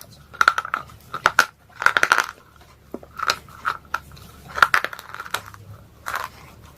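Slate pencil being bitten and chewed, crunching in short clusters of crisp cracks with brief pauses between.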